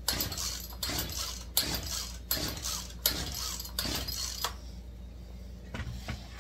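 Recoil starter of a Poulan chainsaw yanked about six times in quick succession, roughly one pull every three-quarters of a second, without the engine catching; the owner suspects it is flooded. A few light knocks follow near the end as the saw is handled on the bench.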